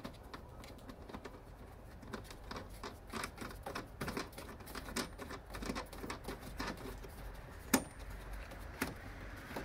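Hands working at the back of an aftermarket LED tail-light housing from inside a car trunk, fitting it on its mounting points: a run of small irregular clicks, taps and scrapes, with one sharp, louder click about three-quarters of the way through.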